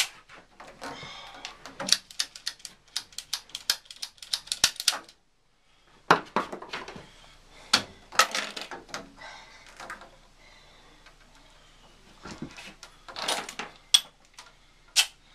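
Rapid clicks, knocks and rattles of tools and pipe fittings being handled during plumbing work, coming in bursts with short pauses.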